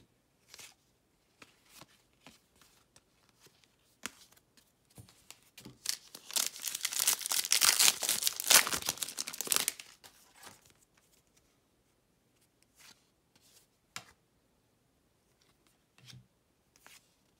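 Foil wrapper of a Donruss basketball fat pack torn open and crinkled by hand: about four seconds of loud crackling in the middle, with faint clicks of trading cards being handled before and after.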